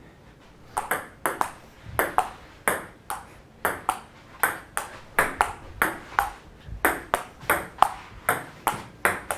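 Ping pong rally: the celluloid ball clicks off the paddles and table in quick pairs, a hit and a bounce about every two thirds of a second, for about eight seconds.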